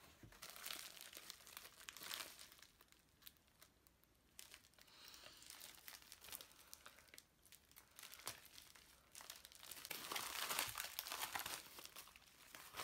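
A small packet being handled and torn open: crinkling in the first couple of seconds, quieter rustling in the middle, then louder crinkling and tearing near the end.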